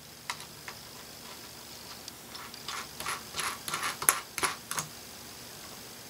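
Small metal clicks and taps of washers being handled and set onto a bolt through a panel board: two single clicks near the start, then a quick cluster of a dozen or so from about two and a half seconds in until nearly five seconds.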